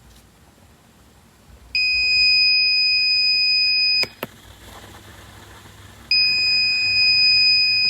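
Piezo buzzer of a laser-beam alarm circuit sounding a steady high-pitched beep twice, each about two seconds long, with a click as the first one cuts off; the alarm sounds when the laser beam is broken.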